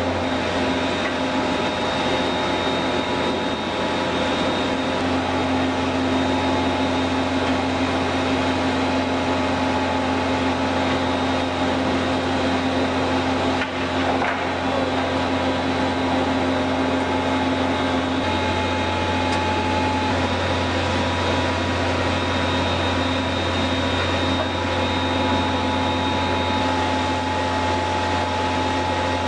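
Rendering-plant machinery running steadily: a constant motor hum with several steady tones over a mechanical rush, dipping briefly about fourteen seconds in.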